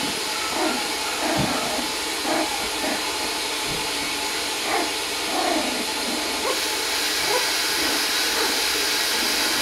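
Three-week-old Lakeland Terrier puppies giving short, faint whimpers and squeaks every second or so, over a loud steady hiss.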